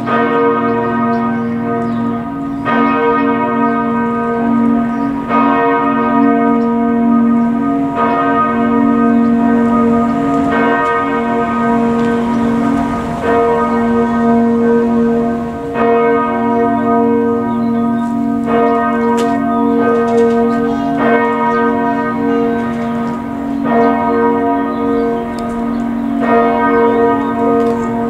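Church bells of St. Bernhard's church ringing together in a full peal. Their tones overlap and ring on, with a fresh strike standing out about every two and a half seconds.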